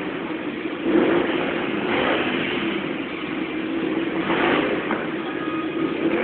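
Ducati Monster motorcycle's V-twin engine running under a stunt rider, revving hard in several bursts between steadier throttle.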